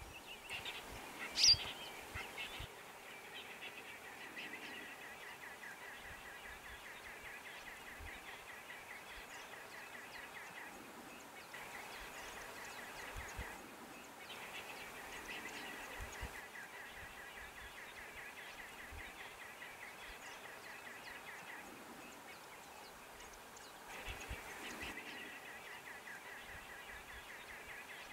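Bush ambience with bird calls: a fast, pulsing high-pitched trill that comes and goes several times, and a single sharp, louder call about a second and a half in, over faint low bumps.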